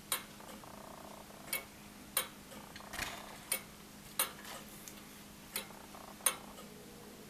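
Movement of a Morbier Comtoise wall clock ticking with its back off: sharp ticks that fall in uneven pairs, about two-thirds of a second apart with a gap of about a second and a half between pairs.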